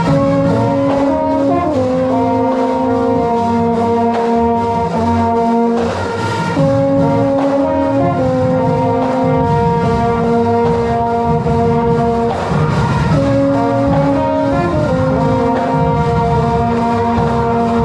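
Marching band playing: the brass section holds sustained chords that change every couple of seconds, over drums.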